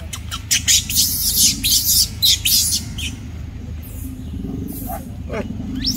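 Newborn macaque squealing: a quick run of shrill, high squeals in the first few seconds, then a wavering cry near the end.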